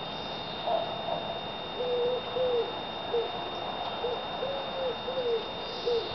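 A pigeon cooing: a repeated phrase of soft, low, rounded notes, some drawn out and some short, starting about two seconds in.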